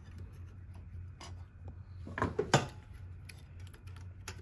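Small metallic clicks and rubbing as a bobbin case is fitted into the large rotary hook of a New-Tech GC-8752-04 twin-needle industrial sewing machine, the loudest clicks about two and a half seconds in and another sharp click near the end.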